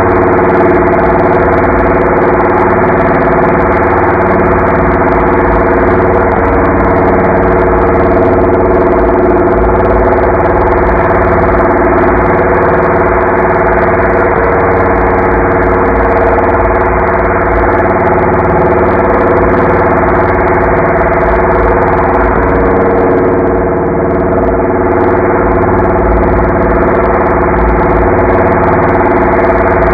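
Voice run through the Voice Changer Plus robot vocoder effect and slowed to quarter speed, so that it becomes a steady, engine-like drone on a few fixed pitches with no words made out.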